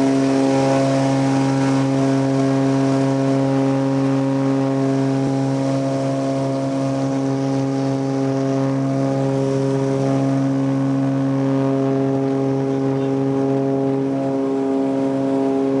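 Cessna 402B's twin Continental TSIO-520 turbocharged piston engines and propellers running, heard from inside the cockpit as a loud, steady drone with a constant pitch, as the plane sits or rolls on the runway for takeoff.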